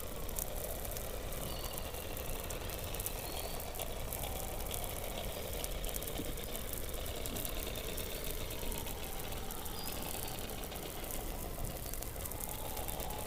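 Underwater soundscape beneath Antarctic ice: a steady low rumble and hiss with many faint gliding, whistle-like calls overlapping, and scattered fine clicks.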